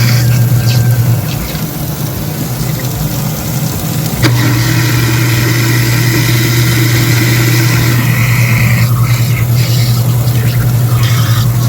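Sink food waste disposer motor running with a steady hum; it cuts out about a second in and starts again with a click about four seconds in.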